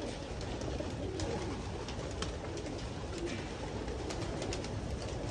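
A loft full of racing pigeons cooing together: a steady mass of overlapping low calls, with scattered faint clicks.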